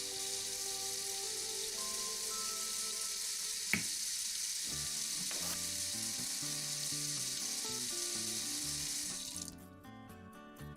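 Steady sizzling of food frying, with two brief clicks about four and five and a half seconds in; the sizzle stops shortly before the end. Soft background music runs underneath.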